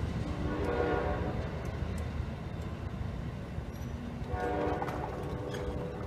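Amtrak passenger locomotive's multi-chime air horn sounding two blasts, one near the start and one from about two-thirds of the way through, over the low rumble of the passing train.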